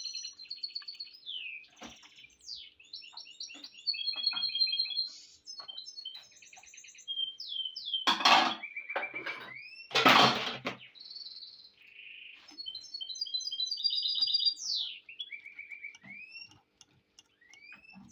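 A small songbird singing on and on: rapid repeated chirps, trills and short rising whistles. Twice, about eight and ten seconds in, a loud burst of noise lasting under a second covers the song.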